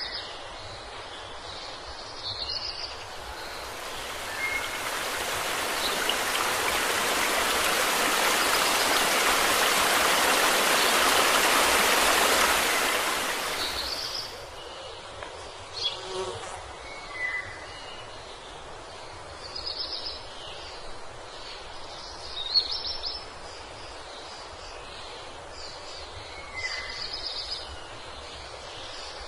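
A rushing noise swells over about ten seconds and stops suddenly about fourteen seconds in, followed by scattered short bird chirps over a low steady background.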